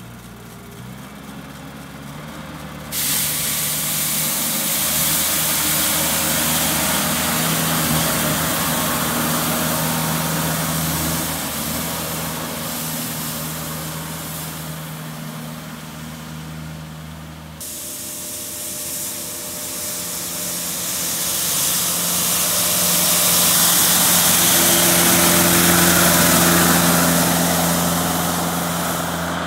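Multihog CX tractor driving with its front-mounted rotary snow broom spinning: a steady engine note under a loud hissing rush of bristles sweeping snow, which starts about three seconds in. The sound shifts suddenly about halfway through, then grows louder as the tractor passes close.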